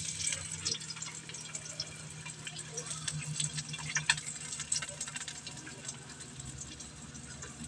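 Chopped onion sizzling in hot oil in a wok as it is sautéed, a dense steady crackle of spitting oil.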